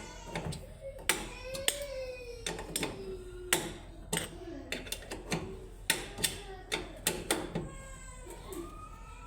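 Irregular sharp clicks and knocks, about a dozen, with faint voices in the background.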